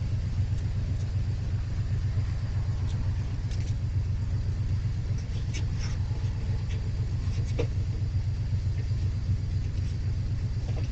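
Steady low rumble with a fast flutter, and a few faint clicks over it.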